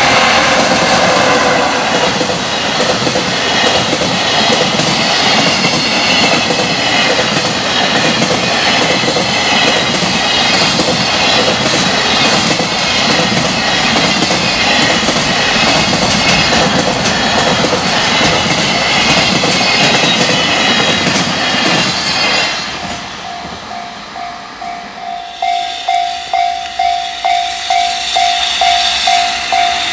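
Long container freight train passing over jointed rail, its wheels clattering over the rail joints in a steady rush that dies away about three quarters through. Near the end a railway level-crossing warning bell rings in a steady pulse of about two strokes a second.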